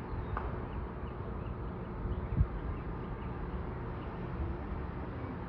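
Outdoor ambience: a low, uneven rumble with faint high chirping above it, and a single short thump about two and a half seconds in.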